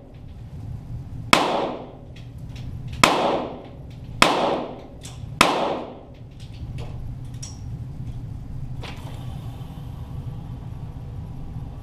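Four shots from .22 Walther GSP target pistols, heard from beside the target, at uneven intervals over about four seconds, each with a long echoing tail. A few much fainter clicks follow, over a steady low hum.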